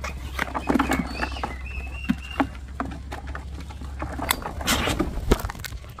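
Crinkling and tapping of a small packet being opened and handled, with a few short bird chirps about two seconds in.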